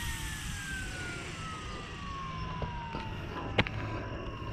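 Electric motor and rotor of a YXZNRC F09 Black Hawk RC helicopter spinning down on the ground, a whine falling steadily in pitch as the rotor slows. A single sharp click about three and a half seconds in.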